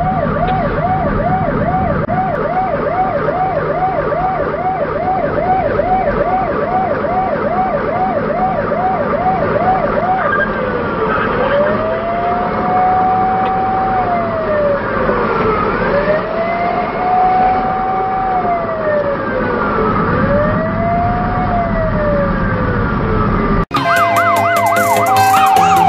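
Electronic siren on a fire brush truck, heard from inside its cab over engine and road noise. It sounds a fast yelp at about two sweeps a second, then at about ten seconds switches to a slow rising and falling wail. A little before the end it cuts off abruptly and music takes over.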